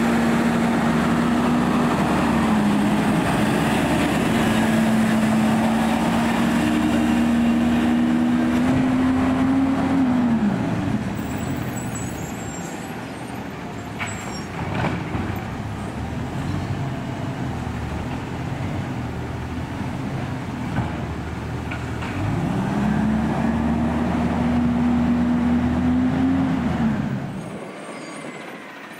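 Automated side-loader garbage truck running, its engine held at raised revs with a steady whine for about ten seconds, then falling back to a lower idle. The engine revs up again for about five seconds near the end before dropping off. Raised revs like this typically drive the hydraulics for the lifting arm.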